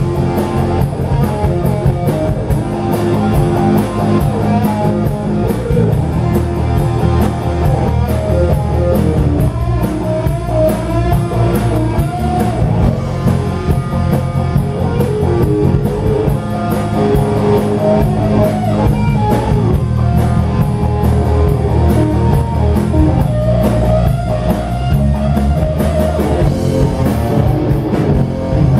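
Rock band playing live: an instrumental break with electric guitar lead lines over bass and a drum kit.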